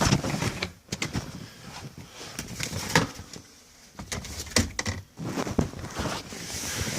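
Plastic under-dash trim cover being handled and set aside: scattered clicks and knocks with rustling.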